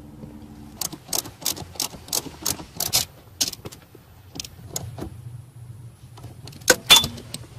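A ratcheting wrench clicking as it tightens the pinch bolt on the steering shaft's universal joint. The clicks come quickly and evenly, about three a second, for the first few seconds, then turn scattered, with two louder metal clinks near the end.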